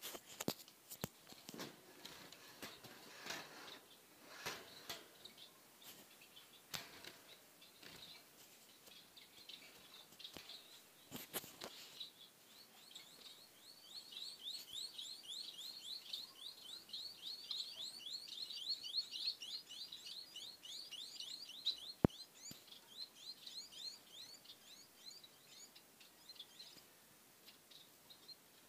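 Caged white society finches: scattered light clicks and rustles of birds moving close by, then, about twelve seconds in, a rapid run of short high chirps lasting about ten seconds, interrupted near its end by one sharp click. A few faint chirps follow.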